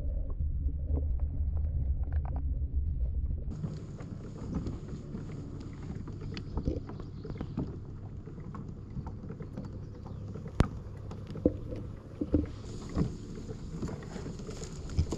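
Muffled low rumble heard through an underwater camera beneath a kayak, then, after an abrupt cut about three seconds in, a kayak sliding through reeds and lily pads, with water lapping against the hull and a few sharp knocks on it.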